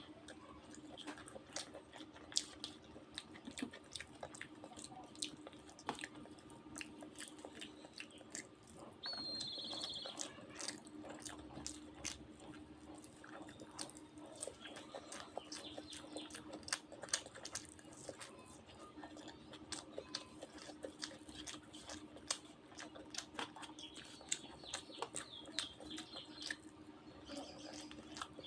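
Close-up chewing and small wet mouth clicks of someone eating a meal of rice and dal, over a steady low hum. A bird chirps briefly about ten seconds in and again near the end.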